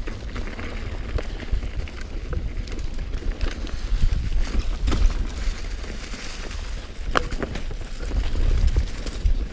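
Mountain bike riding fast downhill on a dirt and leaf-covered trail: wind buffeting the microphone as a steady low rumble, tyres rolling over the dirt, and scattered clicks and rattles from the bike over bumps, the sharpest about five and seven seconds in.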